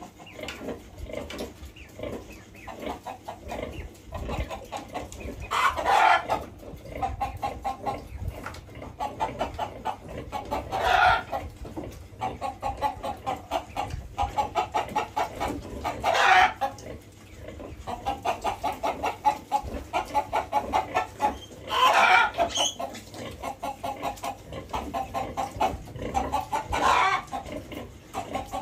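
Farm animal calls: a steady run of short, rhythmic calls, about three a second, broken every five seconds or so by a louder, longer cry.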